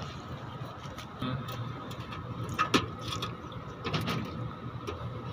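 Electrical wires and small tools being handled: scattered clicks, taps and rustles over a steady low hum.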